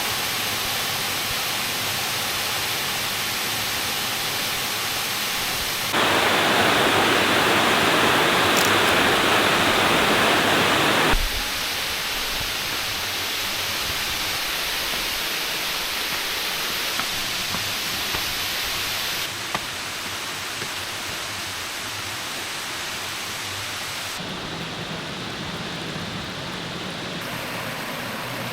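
Steady rushing of a creek waterfall, a constant hiss of falling water. It changes level abruptly several times and is loudest from about six to eleven seconds in.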